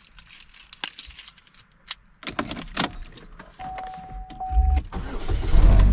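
Keys jangling and clicking as they are handled inside a car, with a steady electronic chime tone about two thirds of the way through; near the end a loud low sound swells up.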